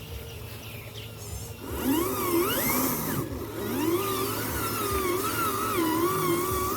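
Small electric motors of RC construction trucks whining, the pitch rising and falling again and again as the throttle is worked, louder from about a second and a half in.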